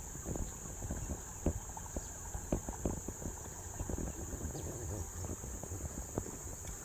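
Steady high-pitched insect drone over a low rumble, with scattered small knocks and clicks.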